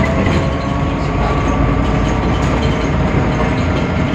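Temsa Avenue LF city bus under way, its DAF PR 228 diesel engine and ZF Ecolife gearbox running with a steady whine over a continuous rumble.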